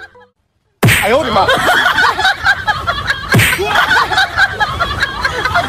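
A loud, busy mix of voices and laughter-like chatter that starts abruptly after a brief silence. Two sharp slapping thumps cut through it, the first as the sound starts and the second about two and a half seconds later.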